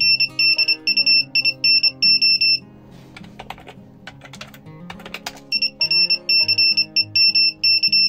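Small buzzer of an Arduino Morse code generator beeping out Morse code: a single high tone keyed on and off in rapid short beeps. The beeping stops about two and a half seconds in, computer keyboard keys clack while new text is typed, and the beeping starts again about two seconds later.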